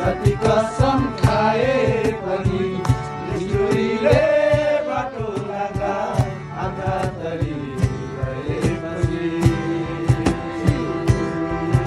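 Men singing a song together to a strummed acoustic guitar, a slapped cajon and a harmonium, with regular sharp cajon strikes. Near the end one long note is held.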